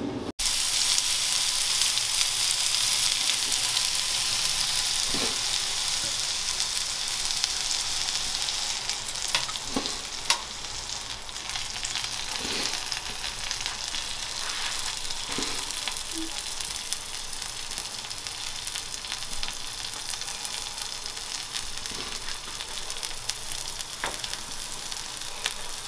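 Marinated vegetable skewers sizzling in a little olive oil on an electric griddle: a steady frying hiss with a few scattered small pops.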